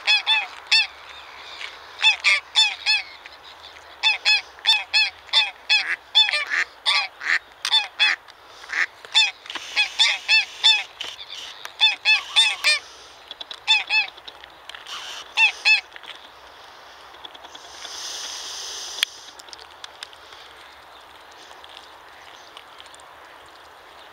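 Greylag geese honking: a long run of loud, short honks, often in quick pairs or triples, that stops about two-thirds of the way through. A brief hiss follows a couple of seconds later.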